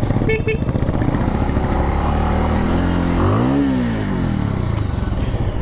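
Motorcycle engine running under load on a slippery dirt trail climb. About halfway through it revs up and then drops back.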